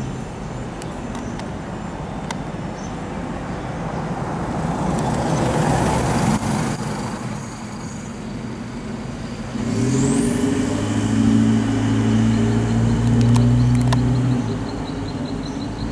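Road traffic passing on the street: a vehicle goes by with a swelling and fading rush of noise about six seconds in. Then, from about ten seconds in, a heavy vehicle's engine runs with a steady low hum for several seconds.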